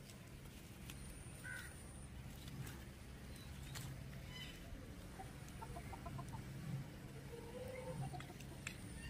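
Faint chicken clucking: a few soft clucks, with a quick run of clucks about six seconds in, over a low steady hum.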